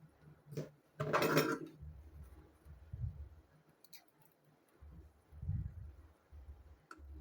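Small handling noises of battery cells and parts on a workbench: a click, then a brief scraping rattle about a second in, and a few low bumps.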